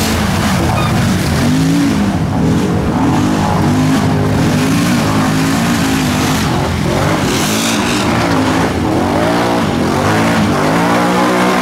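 Several quad ATV engines revving hard, their pitch climbing and dropping over and over, as the quads claw up a steep muddy bank with wheels spinning.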